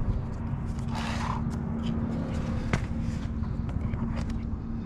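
Scattered clicks and a brief rustle of cable and plastic connector handling as an Anderson plug and jump box are connected, over a steady low hum.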